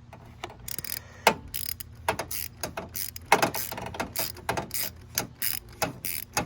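1/2-inch ratchet wrench clicking in quick short strokes, driving a 27mm socket on two extensions and a swivel to loosen the oil filter.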